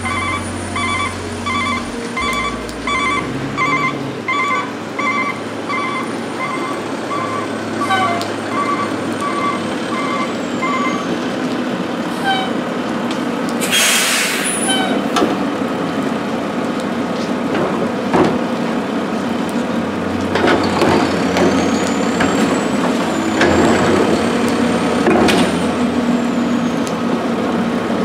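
Rear-loading garbage truck reversing with its backup alarm beeping evenly for about the first eleven seconds, then a short hiss of air brakes about fourteen seconds in. Later a whine rises and falls twice, over steady rain.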